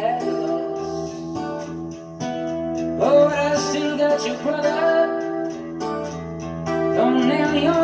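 A song with guitar and singing, played back through a 2-watt 13JZ8 tube amplifier into 1959 Phonola 10.2-inch radio speakers.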